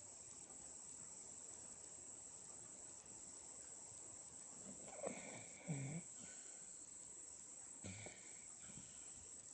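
A seven-month-old baby snoring in her sleep: a few short, soft snores come about five to six seconds in and again near eight seconds. It is ordinary infant snoring, not especially loud.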